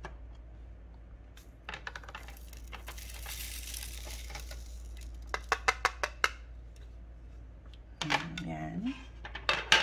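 Small resin diamond-painting drills poured from one plastic tray into another: a rattling shower of beads about three seconds in, then several sharp clicks of plastic trays being tapped together to free the drills, with more clicks near the end.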